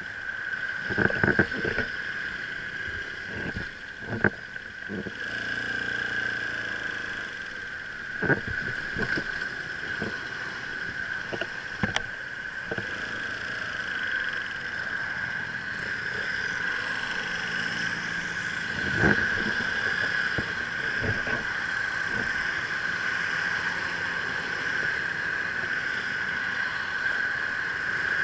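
Motorcycles idling and moving off slowly, heard from a handlebar-mounted action camera: engine and wind noise with a steady high whine and occasional knocks.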